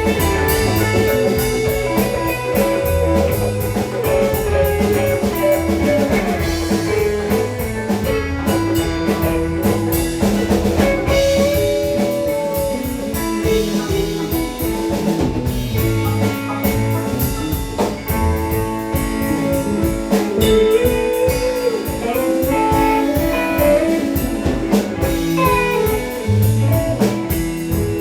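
A live band playing without singing: a guitar plays lead lines with bent, sliding notes over a drum kit and bass.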